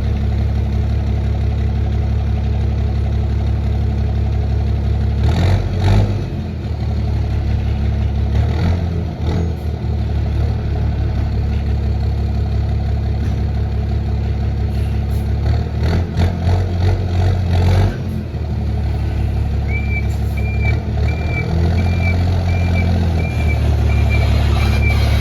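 Ford Cargo 2422 truck's diesel engine, with a comb in the turbo intake and a straight exhaust, idling and revved up a few times as the truck is maneuvered. From a little before the end, a reversing beeper sounds in short beeps, a little under two a second.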